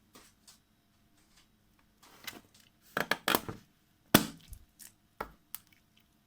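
Balloons being squeezed and popped: a run of sharp snaps and crackles about three seconds in, the loudest single snap about four seconds in, then a few fainter snaps.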